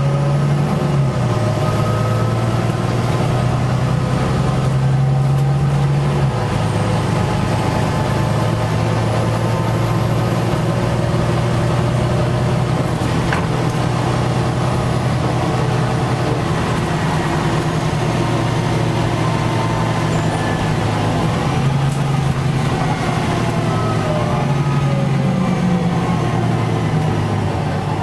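Volvo B9TL double-decker bus's six-cylinder diesel engine running, heard inside the lower-deck saloon as a steady low drone whose pitch steps down and up a few times as the bus drives on. A single sharp knock sounds about halfway through.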